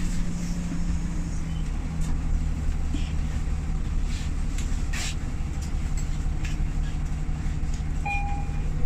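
City bus engine running with a steady low rumble, heard from inside the bus, with a few light rattles and a short beep near the end.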